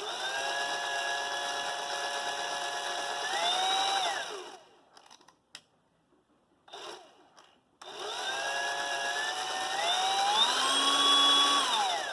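Hercules HCB79B cordless portable band saw running twice with nothing being cut. Each run starts at a steady speed, then climbs to a higher whine as the variable-speed trigger is squeezed further, and winds down when it is released.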